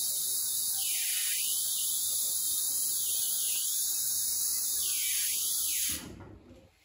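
ARC MT039 rear freehub ticking as the bicycle wheel coasts freely: a loud, rapid, continuous high-pitched buzz of ratchet clicks that cuts off near the end.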